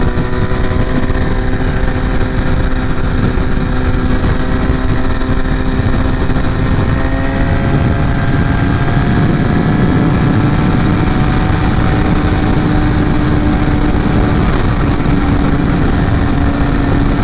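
Carbureted motorcycle engine running steadily at highway cruising speed, its note creeping up a little about halfway through, over heavy wind rush on the helmet microphone.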